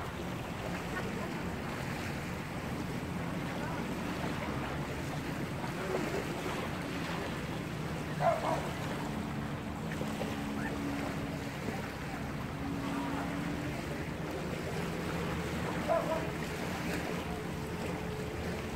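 Shoreline ambience of small waves lapping and wind buffeting the microphone, with a faint low hum underneath. Two brief sharper sounds stand out, about eight and sixteen seconds in.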